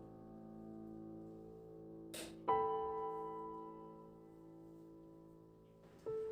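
Soft solo piano background music: slow sustained chords that fade out, with new notes struck about two and a half seconds in and again near the end. A brief swishing noise comes just before the second chord.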